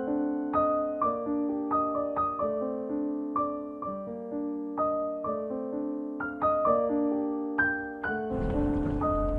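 Background piano music, a gentle line of struck notes. Near the end a steady hiss with a low rumble comes in under it.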